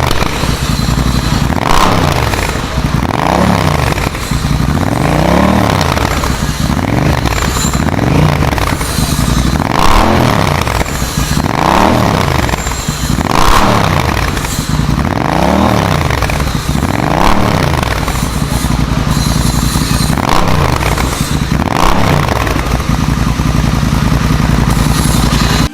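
Honda Rebel 1100's parallel-twin engine through a custom aftermarket exhaust, blipped repeatedly: about a dozen quick revs that rise and fall every second or two, then settling to a steady idle near the end.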